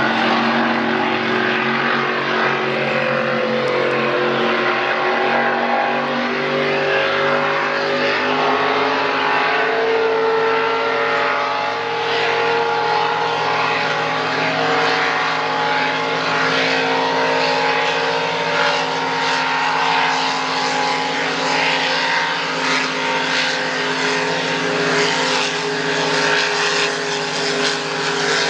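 Several racing powerboats' high-horsepower engines running at speed, a steady drone of several tones whose pitches drift slowly as the boats pass.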